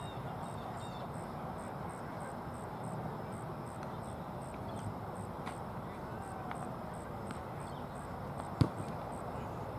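Open-air ambience at a baseball field: a steady low background with a faint high chirp repeating two or three times a second, and one sharp knock near the end.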